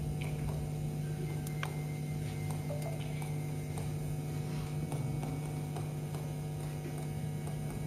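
Scattered faint clicks of typing on a computer over a steady low electrical hum.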